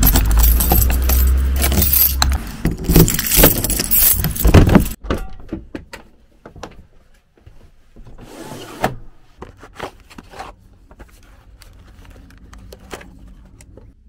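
A bunch of keys jangling as a key is worked in a motorhome's door lock, loud for the first five seconds or so. After that, scattered lighter clicks and a brief swish a little past halfway, as a pleated roof-light blind is slid across.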